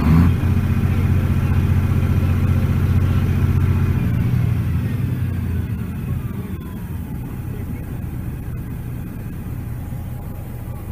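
Detroit Diesel Series 60 11.1-litre inline-six turbo diesel held at raised revs, then easing back toward idle about four seconds in. A turbocharger whine falls steadily in pitch as it spools down. Heard from inside the truck's cab.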